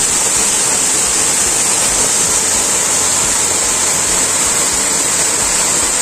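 Waterfall: a loud, steady rush of falling water close by.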